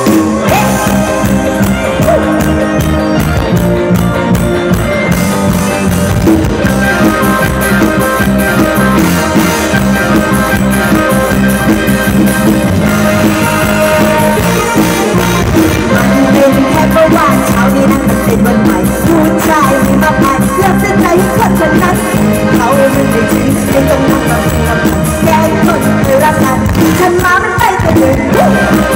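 Live Isan luk thung band music played loud through the stage PA, with a steady beat.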